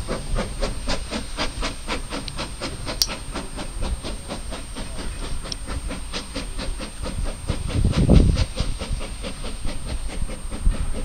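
Steam locomotive working a train of carriages, its exhaust beating in a quick, even rhythm with steam hissing. A low rumble about eight seconds in.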